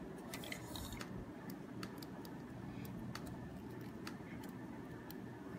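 Faint, irregular small clicks of a plastic action figure and its parts being handled and posed, over a low steady room hum.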